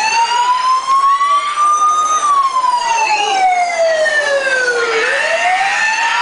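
A wailing siren, its pitch rising slowly for about two seconds, falling for about three, then rising again near the end.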